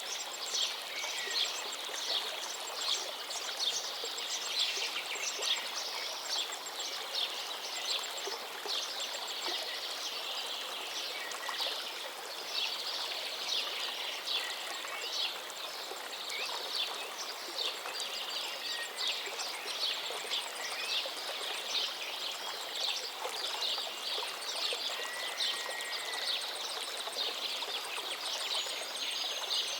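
River water running steadily under a dense chorus of small birds chirping rapidly, with a few short whistled notes, one about 25 seconds in.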